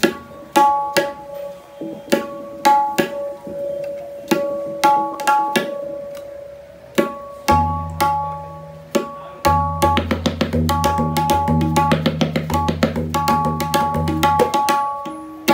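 Tabla played by hand: ringing, tuned strokes on the wooden dayan, at first single and spaced, then joined from about seven and a half seconds in by deep bass strokes on the metal bayan. From about nine and a half seconds the strokes come in a fast run on both drums, stopping shortly before the end.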